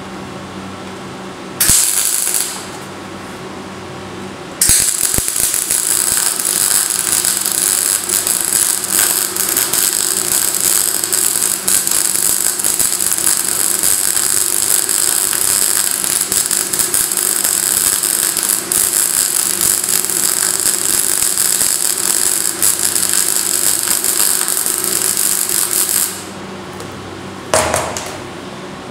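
MIG welding arc crackling and sputtering as a flat steel bar is welded upright onto a steel plate: a short burst about two seconds in, then a long steady run of about twenty seconds starting near five seconds, and one more short burst near the end. Between the bursts there is only a low steady hum.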